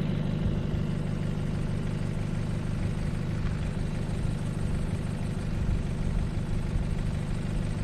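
Vehicle engine idling with a steady low hum.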